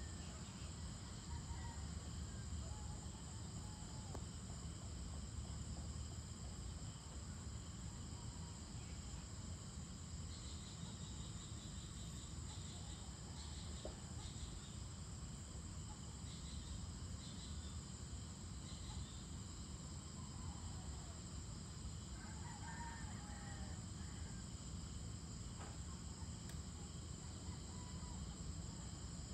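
Dusk ambience: a steady, high-pitched chorus of crickets over a low, constant background rumble, with a few faint bird calls scattered through the middle.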